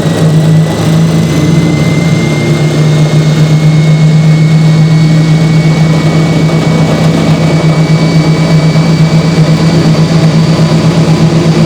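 1968 Hoover Spinarinse 3012A spin dryer running at full spin, very noisy: a strong low hum under a high whine that slowly rises in pitch as the drum gathers speed, the loudness pulsing rapidly toward the end.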